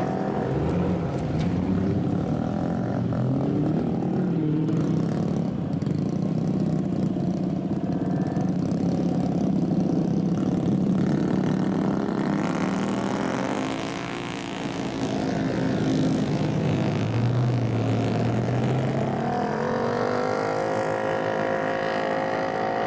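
Modified, lowered cars and small motorcycles pulling away one after another at low speed, their engines and exhausts running with revs rising and falling. About halfway through the pitch sweeps up and down as a vehicle goes by, and near the end an engine note climbs steadily in pitch.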